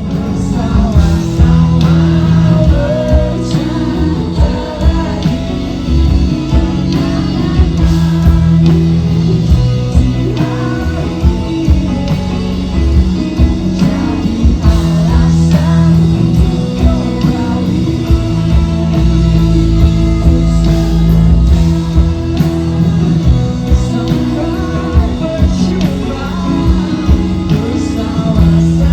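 Rock band playing a song with a lead singer, loud and continuous.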